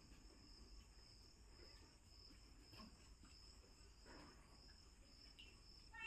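Near silence: a faint, steady, high-pitched insect chirring in the background, with a couple of very faint soft knocks.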